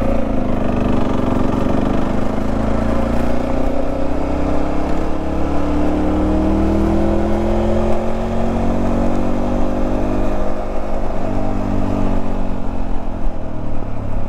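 Motorcycle engine and exhaust under way, over a steady rumble of wind. The engine note climbs slowly for about seven seconds, then falls away, with a change in note a little before the end. The exhaust has been freshly welded after a loose mount and a broken pipe, and now runs without the loud high-RPM drone.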